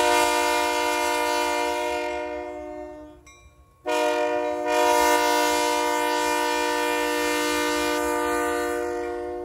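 Union Pacific GP60 diesel locomotive's air horn sounding two long blasts, a chord of several notes, warning at a road crossing: the first about three seconds long and fading, then after a short gap a second, longer blast. A low engine rumble runs beneath.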